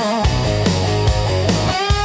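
Heavy rock music: distorted guitars, bass and a drum kit keeping a steady beat. Near the end the heavy low end drops away and a sustained, bending electric guitar lead line comes in over the drums.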